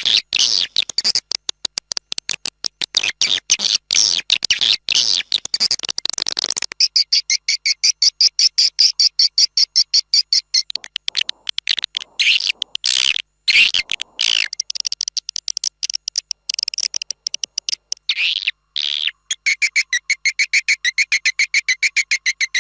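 Swiftlet lure call: rapid high chattering clicks and buzzy trills of swiftlets, a recorded call track played to draw swiftlets into a swiftlet house. Dense clicking gives way about seven seconds in to a steadier high trill, which changes pattern again near the end.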